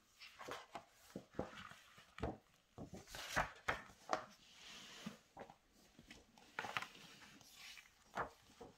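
Soft paper rustles, swishes and light taps as a paperback picture book is opened and its pages are turned by hand.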